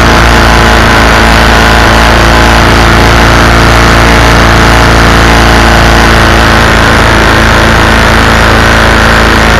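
Predator 212cc single-cylinder four-stroke engine running steadily and loud, driving the canoe's through-hull shaft to a trolling-motor propeller.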